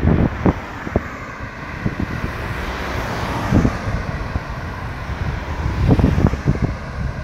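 A car passing close by on the road: tyre and engine noise swells to a peak about three seconds in and fades as it moves away. Wind gusts buffet the microphone near the start and again near the end.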